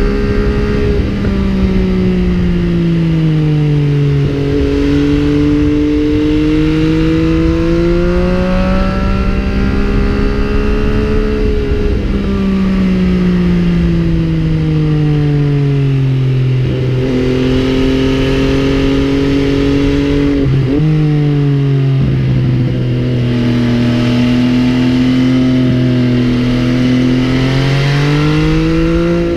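MV Agusta Brutale 800's three-cylinder engine under way, its note falling and rising over several seconds at a time as the rider rolls off and opens the throttle, with a few abrupt changes in pitch where gears are shifted.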